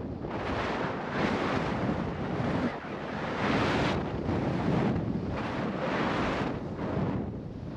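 Skis turning down a steep slope through fresh snow, a hiss that swells and fades with each turn about once a second, with wind buffeting the microphone.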